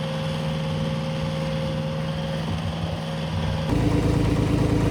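Vehicle engine running steadily. About four seconds in, a louder, deeper engine hum takes over.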